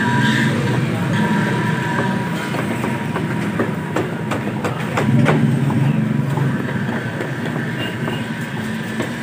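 A large cleaver chopping through fish onto a wooden chopping log, giving a few sharp knocks, most of them in the middle. They sound over a steady low mechanical rumble.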